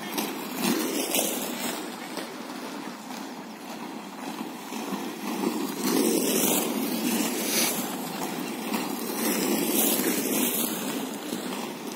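Inline speed-skate wheels rolling on rough asphalt, a gritty rumbling hiss that swells as each skater passes close by, near the start and again about six seconds in.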